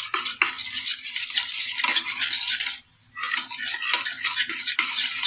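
Wire balloon whisk beating yogurt and sugar in a bowl: fast swishing, scraping strokes of the wires, with a brief pause about three seconds in.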